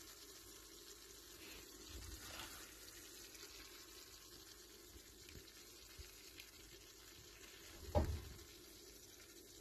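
Faint wet scraping and plopping as thick sausage gravy is spooned onto biscuits on a steel plate with a silicone spatula, over a faint steady hiss, with one brief thump near the end.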